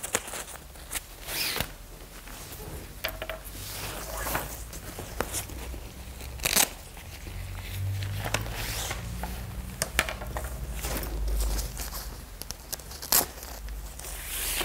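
Rustling and scraping of a pop-up travel cot's fabric as its struts are pulled out of their sleeves, with a few short, sharp ripping sounds.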